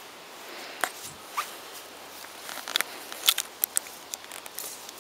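Light scattered clicks and rustles as a dog moves about by a wire exercise pen on grass, growing busier about two and a half seconds in.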